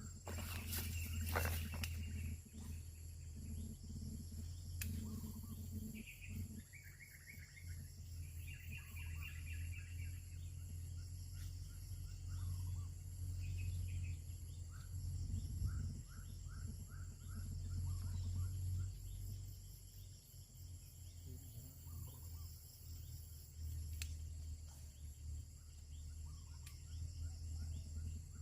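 Outdoor rural ambience: small birds chirping in short runs of quick notes now and then over a steady high insect drone and a low rumble, with a couple of sharp knocks about a second in.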